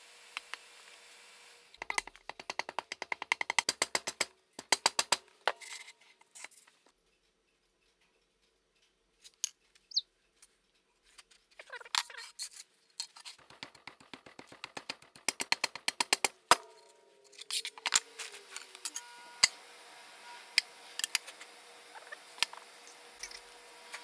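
Quick runs of sharp taps and knocks as Delft Clay casting sand is packed and pressed into a wooden mould box by hand, in bursts separated by a few seconds of silence near the middle, over a faint steady hum.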